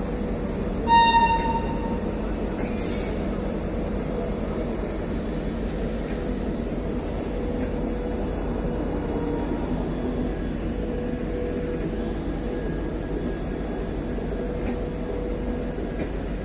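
Passenger coaches of an express train rolling slowly past a platform, a steady low rumble with a faint steady hum. About a second in, a short, loud, high-pitched squeal rings out for about half a second.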